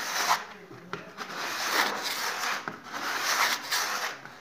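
Sandpaper rubbed by hand along the cut curved edge of a plasterboard panel in repeated rasping strokes, smoothing the saw cut.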